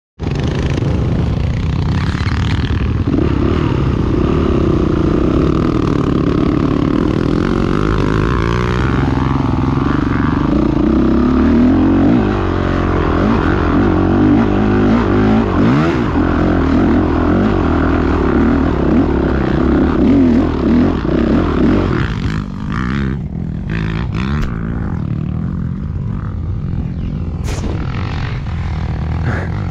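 Off-road dirt bike engine running under load as the bike is ridden over rough grassy ground, its pitch rising and falling with the throttle. About three quarters of the way through it eases off, with a few short knocks and rattles.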